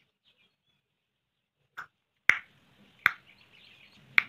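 Four sharp, separate clicks or taps at uneven spacing, the first one weaker, starting about halfway through, with a faint hiss behind them from the second click on.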